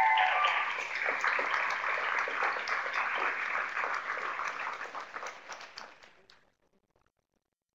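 Audience applauding, a dense patter of many hands clapping that fades out about six seconds in.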